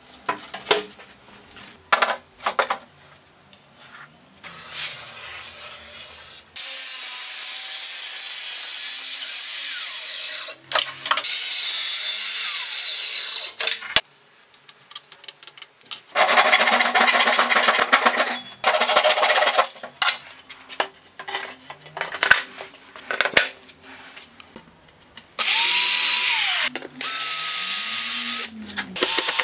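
Cordless drill driving screws into a spruce frame and melamine panel, in about four runs of a few seconds each, the last with a whine that slides in pitch as the motor slows. Short knocks and clicks of wood being handled come between the runs.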